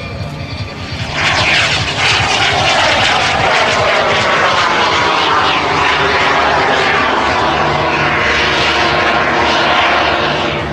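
A jet sailplane's small turbojet making a close pass. A loud rushing whine comes in suddenly about a second in, and its pitch slides down as it goes by.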